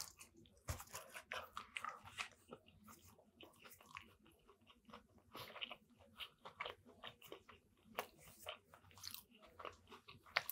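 Close-miked eating: a bite into a sub sandwich with lettuce, then steady chewing with many small mouth clicks.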